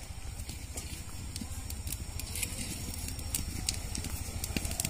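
Faint crackling and ticking of a wood cooking fire under a lidded kadai of simmering dal and spinach, over a steady low rumble.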